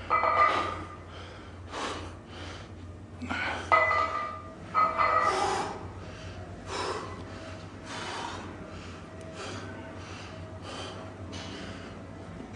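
A man breathing hard through a heavy set, with short, forceful gasps and snorting exhalations. They are loudest in the first half and then settle into quicker, quieter breaths about every 0.7 seconds.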